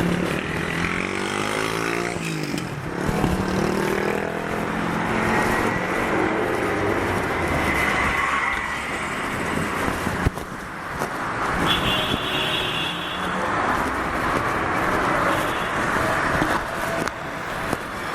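City street traffic: a vehicle engine passes in the first few seconds, its pitch falling and rising, over steady traffic noise.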